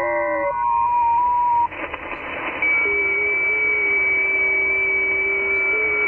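FT8 digital signals on the 40 m band, heard as receiver audio from an Icom IC-7600: several stations' steady tones, each stepping in pitch. Most of them stop about half a second in and one lingers to nearly two seconds. Then comes a moment of band hiss with faint clicks, until a new FT8 period begins with fresh tones, one high and one low, about two and a half seconds in.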